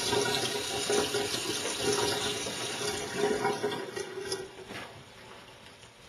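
Water leaking past a plug in a steel water pipe, running and splashing into a stainless-steel sink; the flow dies away about four to five seconds in.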